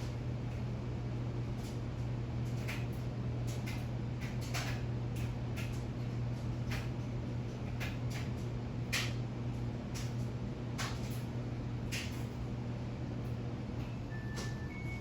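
Ceiling fan motor running with a steady low hum, with scattered irregular light clicks. A few short high beeps come near the end.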